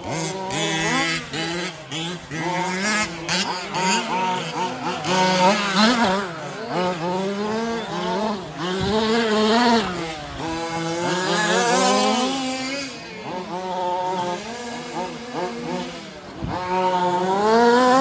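Several 1/5-scale RC trucks' small two-stroke petrol engines racing, overlapping, each revving up and down as the trucks accelerate and brake round the track.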